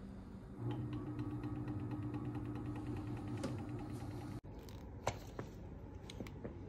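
Hotplate magnetic stirrer switched on and running: a steady motor hum with rapid, even ticking as the stir bar spins in the flask, stopping abruptly about four seconds in. A few light clicks follow.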